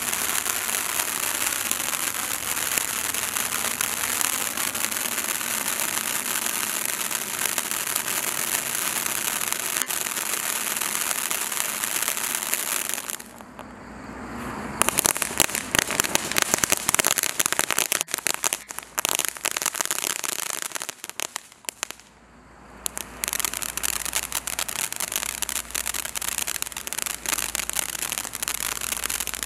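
Paparazzi novelty camera fountain firework burning. A steady spray hiss runs for about thirteen seconds, then dies down briefly. It comes back full of sharp crackling pops, dips again a little past twenty seconds, and then hisses and crackles once more.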